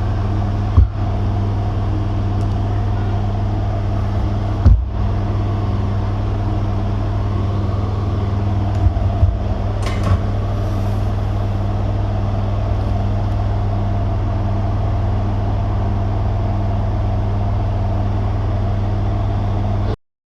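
Steady low electrical hum with a few short clicks and taps over it; the hum cuts off suddenly near the end.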